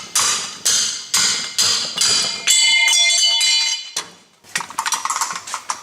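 Hammer striking a car's strut, about two blows a second, to knock it free of its mount. Then comes about a second of metallic ringing, followed by lighter clattering.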